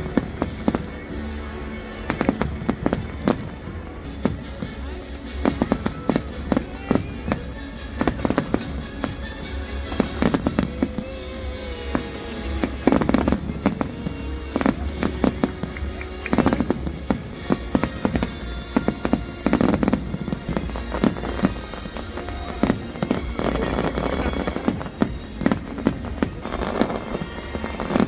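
Fireworks exploding in rapid, irregular succession: a run of sharp bangs and cracks with rumbling echoes, heard over music.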